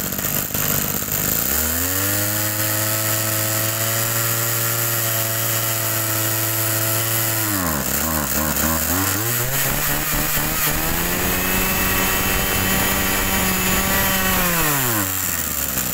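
Mitsubishi TL26 brush cutter's small two-stroke engine revved up from idle and held at high speed for about six seconds, let back to idle briefly, then revved and held again for about five seconds before dropping back to idle near the end.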